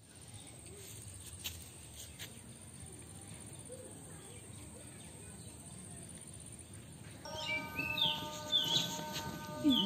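Outdoor ambience with faint birdsong; about seven seconds in, louder bird chirps come in together with a steady tone held at several pitches from an unseen source.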